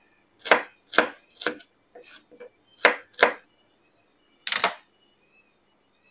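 Kitchen knife slicing shallots on a plastic cutting board: sharp chops about twice a second with a few softer ones between, then one louder knock about four and a half seconds in.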